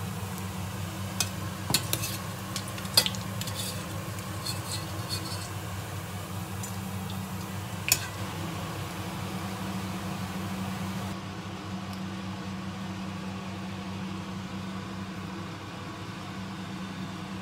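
Hot oil sizzling steadily in a small pot after deep-frying, with a metal skimmer clinking sharply against the plate and pot a few times in the first eight seconds, over a steady low hum.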